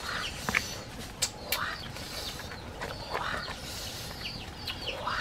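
Short bird-like calls and chirps scattered through a steady background, with a few sharp clicks in the first second and a half.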